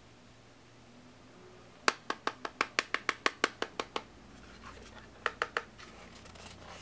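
Fingers tapping on the plastic casing of a WD My Passport portable hard drive: a run of about a dozen quick sharp clicks, some six a second, starting about two seconds in, then three more taps a second later.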